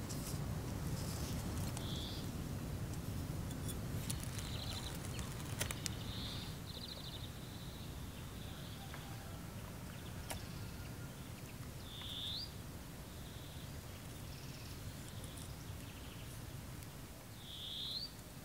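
Small birds calling, with short chirps and rising calls every few seconds, over a steady low outdoor rumble. In the first few seconds there are light clicks and rustles of tape and paper being handled.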